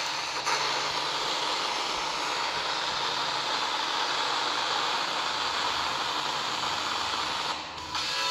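FM radio static: the steady hiss of a smartphone's FM tuner between stations while it is tuned across empty frequencies. It dips briefly near the end.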